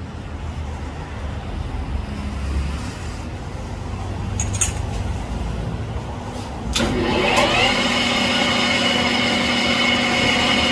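A small metal lathe is switched on about two-thirds of the way through. Its motor spins up the four-jaw chuck, rising in pitch, then runs on with a steady whine. Before that come a few sharp metallic clicks as the chuck is tightened with its key.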